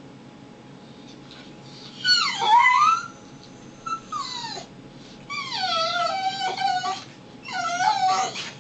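American Pit Bull Terrier whining: four drawn-out cries, each sliding down in pitch. The first and loudest comes about two seconds in, and the rest follow at intervals to near the end.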